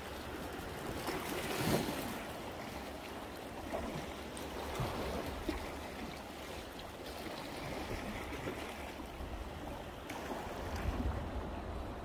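Sea washing against shore rocks, with wind rumbling on the microphone; one short, louder rush of water noise about two seconds in.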